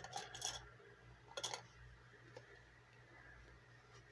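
Soft handling noises from hands moving paper challenge sheets and cash: a few faint taps and rustles at the start and again about a second and a half in, then near silence.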